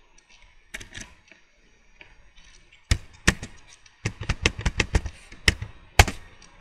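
Computer keyboard keys clicking as a command is typed, in irregular single strokes and then a quick run of about eight keys. The loudest keystroke comes near the end, typical of the Enter key sending the command.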